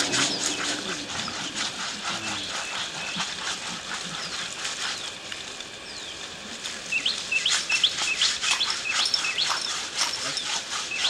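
Hand scrubbing and water splashing on an elephant's foot as it is washed with a garden hose, a rapid run of short rubbing strokes. Birds chirp repeatedly from about two-thirds of the way in.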